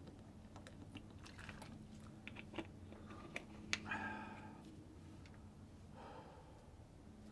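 Faint crackling and clicking of a thin plastic water bottle being handled, with a couple of brief squeaks about four and six seconds in.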